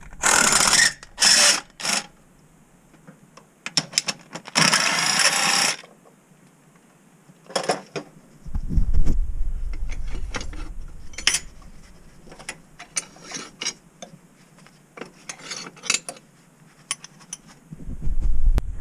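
Hand ratchet wrench clicking in several quick runs as bolts holding a Toyota V6's lower intake manifold are undone, then scattered clicks and taps of tools on metal. A low rumble comes in about halfway through and again near the end.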